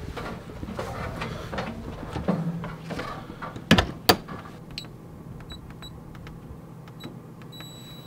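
An RV entry door being pulled shut: movement and small knocks, then two loud knocks about half a second apart as the door closes and latches. Then a few short electronic beeps with faint clicks at uneven spacing, and a longer beep near the end.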